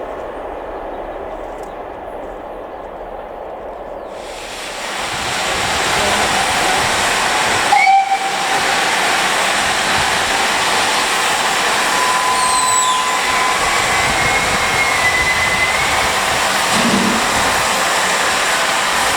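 Steam locomotive venting steam: a loud, steady hiss builds up about four seconds in and holds, with a brief whistle-like tone near the middle.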